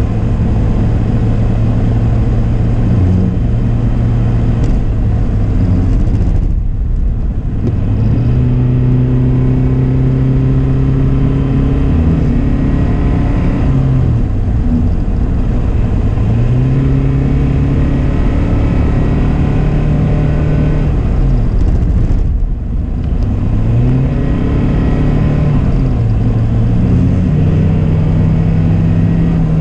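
Car engine and road noise heard from inside the cabin while driving, the engine note repeatedly rising and falling as the car speeds up and eases off. There are two brief lulls in the noise, about seven seconds in and again past twenty-two seconds.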